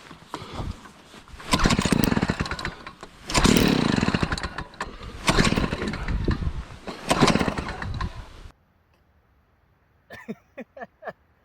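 Gas-powered ice auger being pull-started: four pulls about two seconds apart, the engine turning over in short bursts without keeping running. The owner guesses the carburetor needs adjusting or a rebuild kit. The sound cuts off suddenly, and a few short faint sounds follow near the end.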